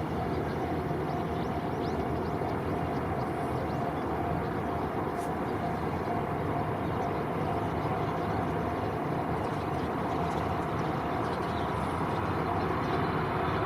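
Freight train running past on the rails: a steady rumble of wheels and wagons that grows slightly louder near the end.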